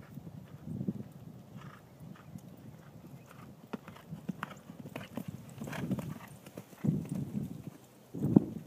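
Hoofbeats of a horse cantering on grass and dirt, an uneven run of dull thuds with a louder thump near the end.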